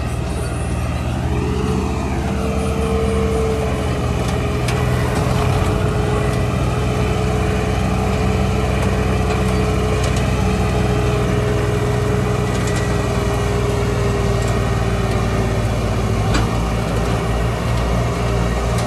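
Diesel engines of a John Deere tractor and a second tractor running steadily under load, hauling two trolleys heavily loaded with sugarcane, with a steady whine over the engine note that rises slightly about two seconds in.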